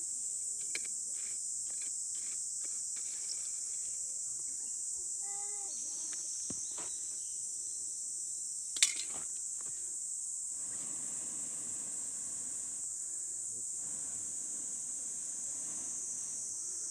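Steady high-pitched shrilling of insects, with scattered light clicks and one sharp knock just before the nine-second mark.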